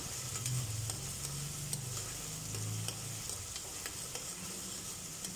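Chopped onions sizzling in hot oil in a stainless steel pressure cooker as they are stirred and sautéed, the spoon scraping and ticking against the pot now and then.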